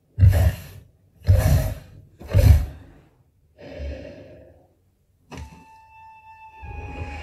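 Sound from a screen being watched: three loud bursts of noise about a second apart, then a softer one. About five seconds in a flute-like melody begins.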